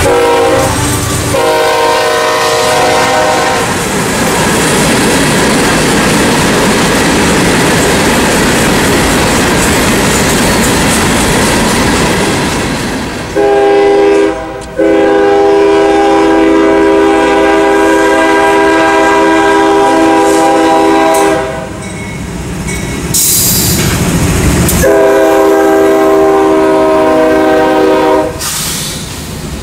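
Diesel freight locomotive air horns sounding a multi-note chord: a short blast near the start, a long blast through the middle broken once briefly, and another near the end. Between the blasts, the steady rolling noise of a CSX freight train's wheels and cars passing on the rails.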